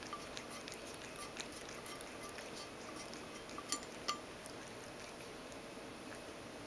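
Ragdoll cat lapping ice water from a stainless steel bowl: a quick run of small wet clicks. Twice, a little past the middle, an ice cube knocks against the steel with a sharp clink.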